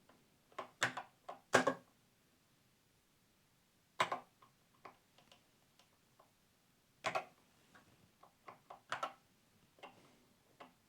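Faint, scattered key clicks from typing on a Commodore 64 keyboard, in short irregular runs with pauses between them.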